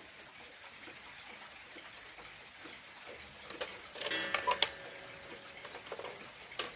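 Three-train cuckoo clock ticking quietly. About four seconds in comes a cluster of clicks and a few short ringing notes as its hands are turned by hand, and a single sharp click near the end.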